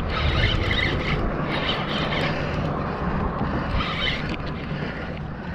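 Wind buffeting the microphone, a steady low rumble, with a spinning reel being cranked in spells underneath as a fish is reeled in.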